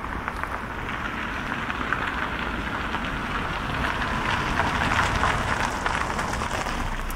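A vehicle passing by, its tyre hiss and low rumble growing louder to about five seconds in, then fading.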